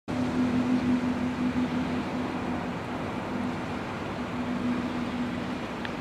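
Steady low mechanical hum over a rumble, from vehicle traffic near the bridge.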